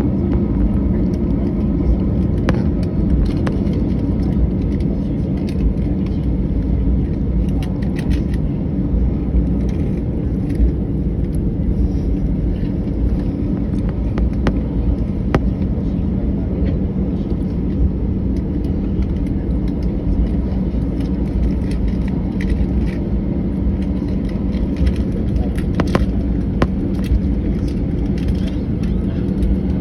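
Airbus A319 cabin noise during taxi: a steady low rumble of the running jet engines and airframe with a constant hum, and a few light clicks and knocks.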